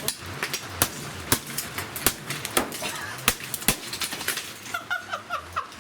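A string of hard, irregular blows smashing an electrical appliance, about one or two a second. Near the end comes a quick run of short, high chirps.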